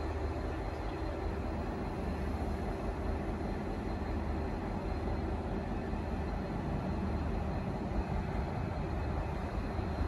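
V/Line N class locomotive's EMD 645 V12 two-stroke diesel idling at a standstill: a steady low engine hum with no change in speed.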